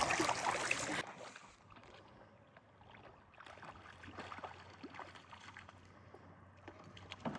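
Water splashing that stops abruptly about a second in, then faint scattered knocks and clicks on a kayak.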